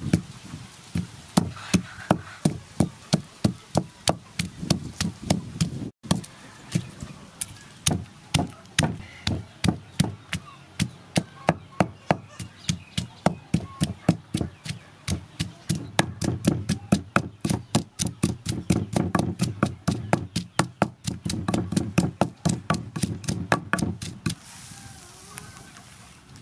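Wooden pestle pounding chilies and garlic in a wooden mortar: a steady run of dull knocks about two to three a second, getting faster in the second half and stopping near the end.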